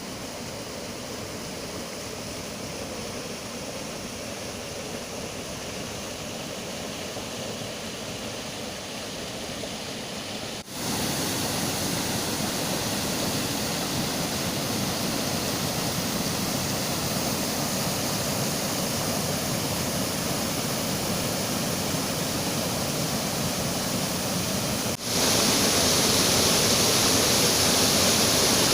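Water pouring over small river waterfalls: a steady rushing noise. It steps up louder after short breaks about ten seconds in and again near the end.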